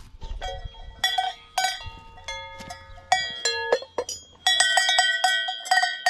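Hand-held Swiss cow bells being rung by shaking, the clapper striking the bell so it rings with long, clear tones. A few separate strokes come first, then from about four and a half seconds in a quick, continuous clanging.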